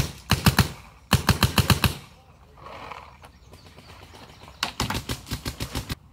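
Paintball marker firing rapid strings of shots, about ten a second: a short string at the start, another about a second in, and a longer one near the end.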